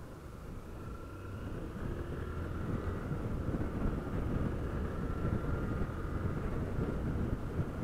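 Honda CG 160 Fan single-cylinder motorcycle running along the road, mixed with wind noise on the microphone. The sound grows louder over the first three seconds as the bike picks up speed after the turn, then holds steady.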